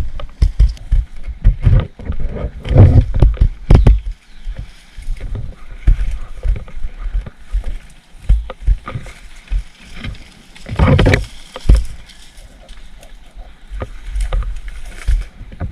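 Irregular thumps and rustling from someone moving through thick vegetation with the camera carried on the body, with a longer, louder rustle about eleven seconds in.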